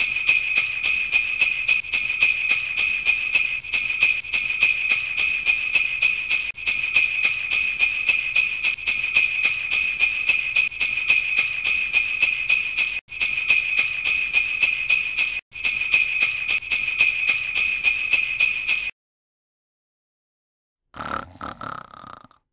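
Sleigh bells jingling in a steady shaken rhythm, about three beats a second, that cut off suddenly about nineteen seconds in. A short, faint sound follows near the end.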